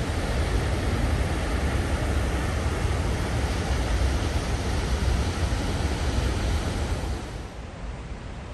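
Rhine Falls' white water rushing, a steady noise heavy in the low rumble; it turns quieter and thinner about seven seconds in.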